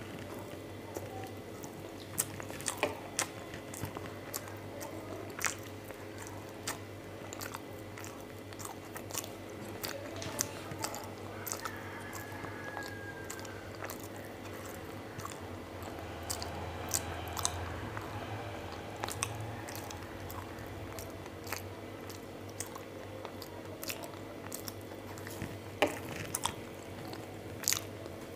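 A person chewing and eating close to the microphone, with frequent short, sharp mouth clicks and smacks scattered throughout, over a low steady hum.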